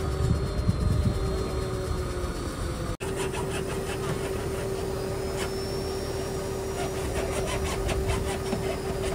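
Truck-mounted borewell drilling rig's engine running steadily with a constant hum. Near the end comes a run of quick metallic clicks.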